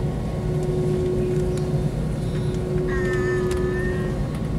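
Cabin noise inside an Airbus A320-family airliner taxiing: the jet engines' steady hum over a low rumble. A short high-pitched sound comes in about three seconds in.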